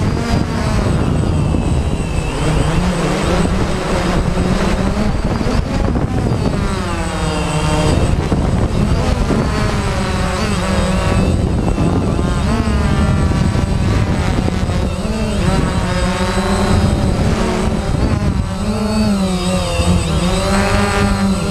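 DJI Phantom quadcopter's four electric motors and propellers buzzing in flight, heard from the camera mounted on the drone. A steady low hum runs under a whine whose pitch rises and falls again and again as the motors speed up and slow down while the drone manoeuvres.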